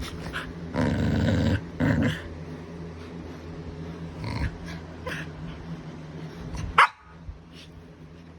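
Shar Pei and pit bull play-fighting, growling, with two loud rough growls about a second in and scattered shorter growls and yips after. Near the end there is a single short, sharp noise, the loudest moment.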